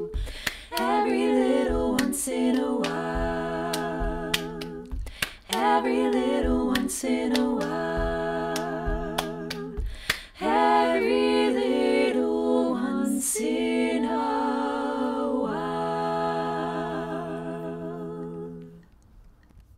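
Women's voices singing a cappella in four parts (SSAA), holding chords in phrases of about two seconds, with sharp claps and snaps of body percussion between them. The singing fades out near the end.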